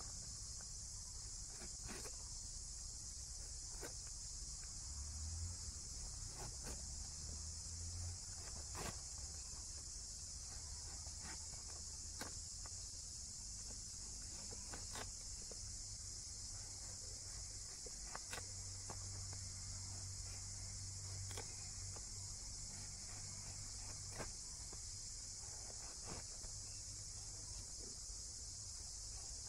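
A steady, high-pitched chorus of insects, with a light sharp click every few seconds from a knife peeling raw jackfruit.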